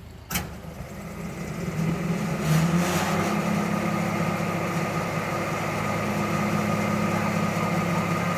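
A sharp click, then an engine running, building up over the first two seconds and then holding at a steady idle.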